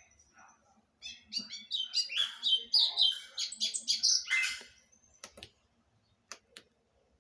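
A songbird singing a quick run of high chirps and trills for about four seconds, followed by a few sharp clicks.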